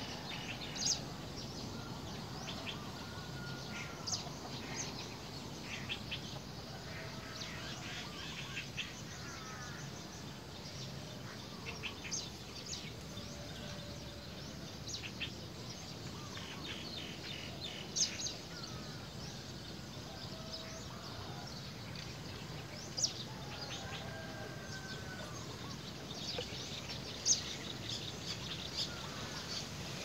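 Scattered short bird chirps and calls over a steady outdoor background hiss, with a few sharp chirps standing out above the rest.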